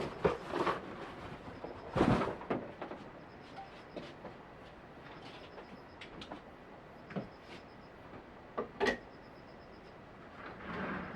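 Irregular knocks and thumps over a steady hiss. The heaviest thump comes about two seconds in, a sharp double knock near nine seconds, and a softer swelling rumble near the end.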